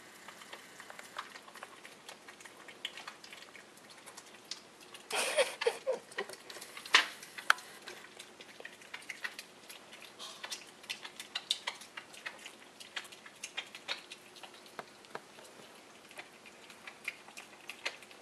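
Wild boar piglet chewing and smacking on an orange: a run of wet clicks and crunches, with a louder flurry about five seconds in and one sharp snap shortly after.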